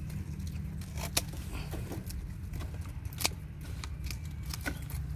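Hand pruning shears snipping small side shoots off a bougainvillea trunk: a few sharp, separate clicks of the blades closing.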